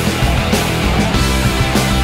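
Loud rock music played as a soundtrack, with a steady driving beat.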